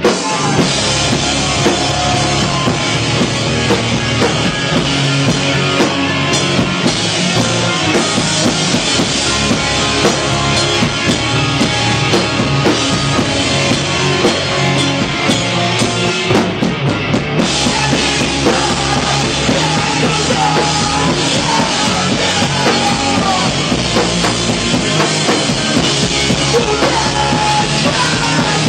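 Pop-punk band playing live: electric guitars and a drum kit in a loud, steady wall of sound.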